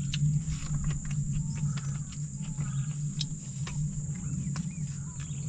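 Insects droning in one steady high tone over a low steady hum, with scattered small crinkles and clicks from a paper food wrapper being handled as food is eaten by hand. A few faint bird chirps.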